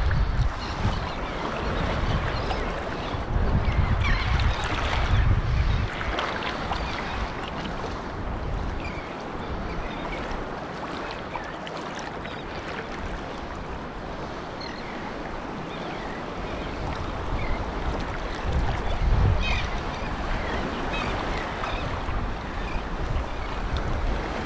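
Wind buffeting the microphone in low gusts over waves washing and lapping in shallow surf, with a few faint short chirps.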